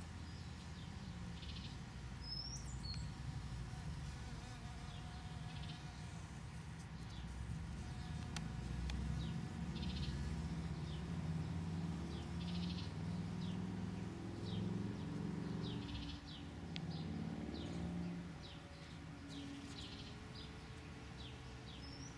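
A honeybee buzzing close by, its hum wavering and growing louder for several seconds before it fades away. Small birds chirp repeatedly in the background.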